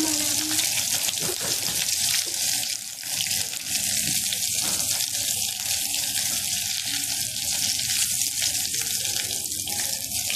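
Besan-coated aloo tikkis deep-frying in hot oil in a kadhai: a steady, dense sizzle as they brown, close to done.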